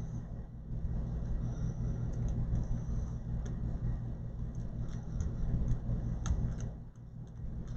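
A steady low hum, with light, scattered clicks and taps of small-parts work on an opened laptop, heard more often in the second half.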